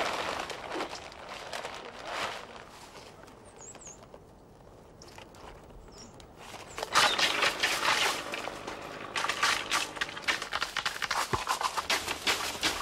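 Rustling of olive leaves and twigs with a patter and clicking of olives as they are picked and sorted by hand. It is fairly quiet at first and grows busier and louder about halfway through.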